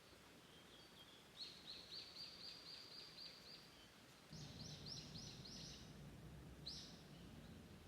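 Small songbird singing faintly: a quick run of repeated high notes, about four a second, then a second run of higher, falling notes and one last note near the end.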